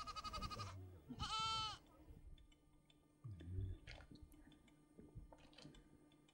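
Goat bleating twice in quick succession, the first call quavering, the second a smooth rising-and-falling call. Then faint scattered clicks and knocks.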